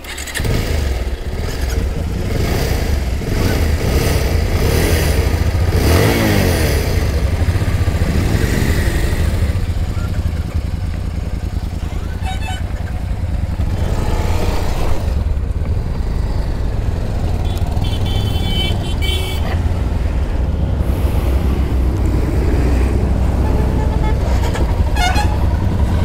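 Motorcycle engine running on the move, with a loud steady rumble of wind on the microphone; the engine pitch rises and falls a few times in the first several seconds.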